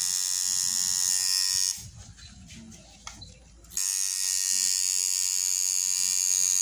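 Coil tattoo machine buzzing steadily as it works ink into skin; it stops about a second and a half in and starts buzzing again about two seconds later.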